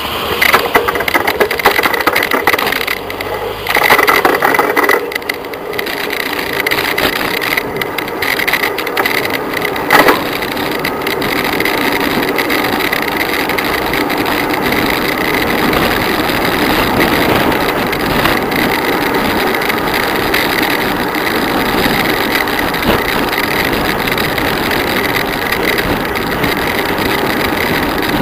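Wind and road noise rushing over the microphone of a bicycle descending a mountain road fast, with the bike rattling. Uneven with loud knocks at first, one sharp knock about ten seconds in, then a steady rush.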